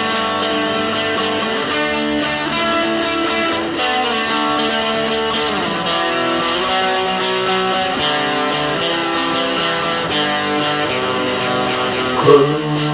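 Instrumental alt-folk music led by plucked guitar, playing held notes that slide between pitches, with a sharper accent near the end.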